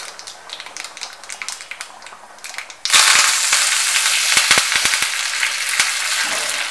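A tempering of seeds and dal frying in a small pan of hot oil, crackling and popping. About three seconds in, the sizzle jumps suddenly to a loud, dense hiss, and curry leaves and coriander fry in the oil.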